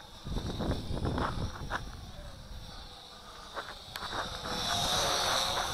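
Wind buffeting the microphone in gusts: a low rumble in the first two seconds, then a hissier gust near the end, with a few light knocks or scuffs in between.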